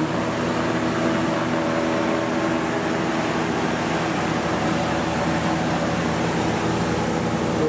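Steady machine hum from a CNC tool grinder's auxiliary units, its cooling cabinet and coolant-filtration unit, running: an even rush like a fan with several low steady tones.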